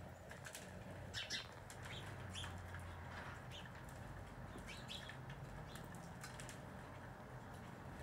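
Scattered short, high chip notes from a northern cardinal, a few at a time, the loudest about a second in, over a low steady hum.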